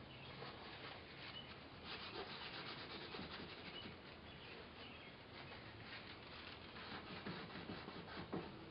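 Faint scratchy rubbing of a paintbrush scrubbing oil paint onto the canvas in quick, repeated short strokes, the block-in stage of the painting.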